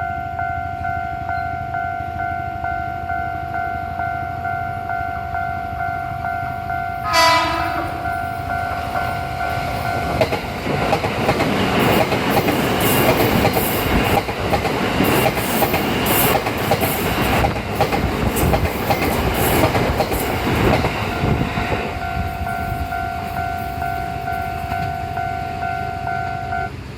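Rinkai Line 70-000 series commuter train sounds its air horn in one short, loud blast about seven seconds in, then passes over a level crossing, its wheels beating a rhythm on the rail for about twelve seconds. A level crossing warning signal sounds steadily before and after the train and stops just before the end.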